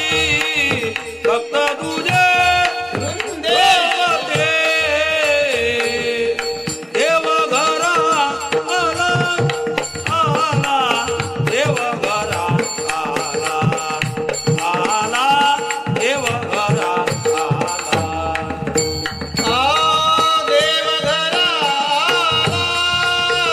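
Marathi Varkari bhajan: a singer's voice gliding through ornamented phrases over a steady held drone, with regular hand percussion keeping the beat.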